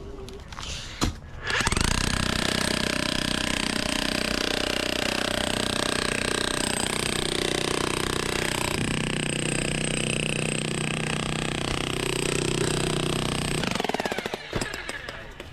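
A loud motorized tool or small engine starts abruptly and runs steadily for about twelve seconds, then stops.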